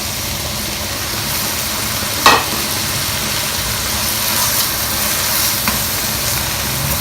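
Prawns and freshly added lomi noodles sizzling steadily in a hot pan, with one sharp knock a little over two seconds in and a faint click near the end.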